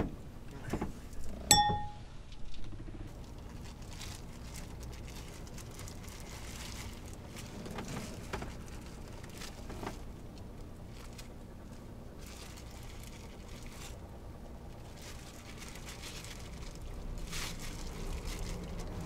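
Quiet handling sounds of sushi being shaped with plastic-gloved hands, with faint scattered ticks and rustles over a low steady hum. One short ringing clink comes about a second and a half in.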